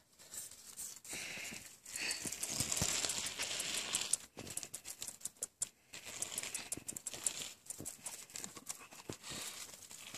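Tiny Prague ratter puppies scrabbling about on rock and being handled: an irregular run of soft rustling and scratching with many small clicks.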